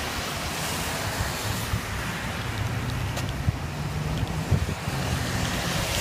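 Storm wind buffeting the microphone in uneven gusts, over the hiss of car tyres passing on the rain-soaked road.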